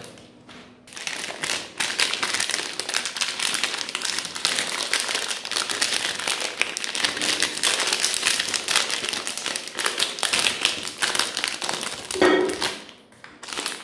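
Shiny plastic wrapper of a Magnum ice cream bar crinkling and crackling as it is torn open by hand and peeled back from the bar.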